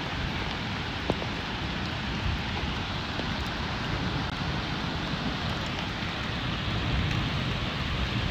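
Rain falling steadily, a continuous hiss, with one sharp click about a second in.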